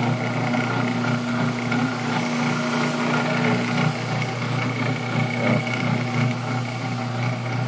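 Electric rotary floor machine scrubbing carpet, its motor running at a steady speed with an even hum and a constant higher whine.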